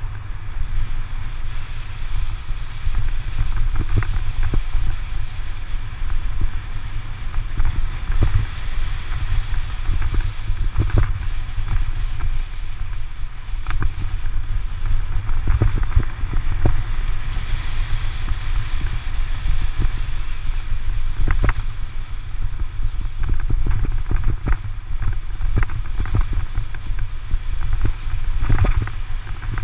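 Wind buffeting an action camera's microphone while riding a bicycle down a gravel dirt road. A steady low rumble is broken by frequent short clicks and knocks as the bike jolts over stones and ruts.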